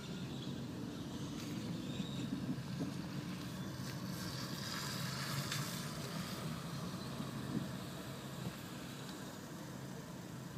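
Steady low rumble of a car's engine and tyres heard from inside the cabin, moving slowly on a wet road, with a hiss that swells about four to six seconds in.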